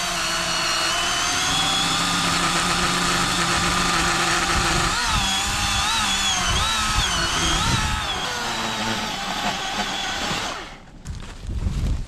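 Cordless battery-powered chainsaw running with a steady electric whine as it cuts through a fallen tree trunk. Its pitch wavers under load from about five seconds in, and it stops shortly before the end.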